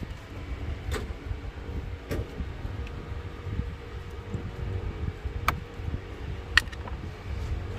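Steady low mechanical rumble, with two sharp clicks about five and a half and six and a half seconds in.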